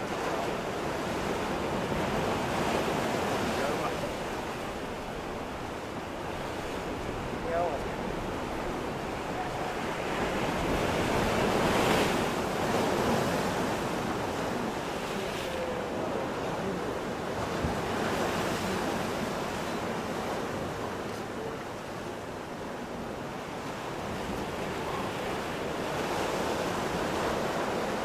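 Ocean surf breaking and washing on the shore, swelling and easing in slow surges, loudest a little under halfway through.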